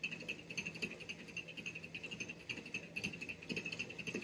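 Spinning reel being cranked steadily to wind line onto its spool from a supply spool, giving a fast, even mechanical ticking.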